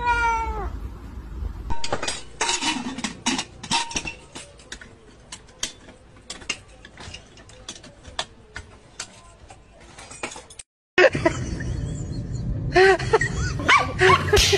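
A cat's drawn-out meow, sounding like 'mama', falls in pitch and ends just after the start. Then comes a long stretch of scattered clicks and clinks. After a brief cut-out near the end, dogs bark in short high calls.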